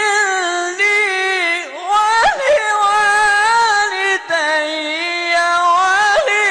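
A solo male Quran reciter chanting tilawah in long, melismatic held phrases, a high voice sliding and turning between notes. There are a few short breaks between phrases and a quick upward swoop about two seconds in.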